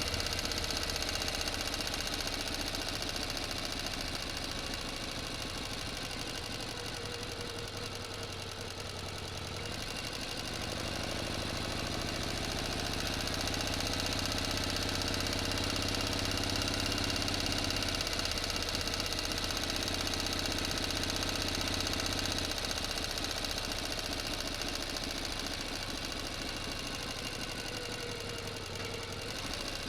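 An engine running continuously with a rapid, even firing pulse. Its note changes around the middle, getting a little louder and fuller for several seconds before settling back.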